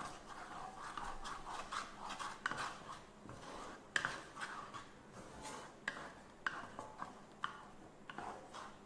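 Wooden spatula stirring a thick cream sauce around a nonstick wok: irregular scraping strokes and knocks of the spatula against the pan, the loudest about four seconds in.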